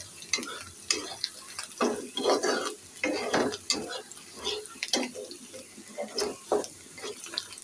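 Metal spatula scraping and clinking against an iron wok as sliced onions and green chillies are stirred, over a steady sizzle of frying oil. The strokes come irregularly, several a second. The onions are being fried toward golden.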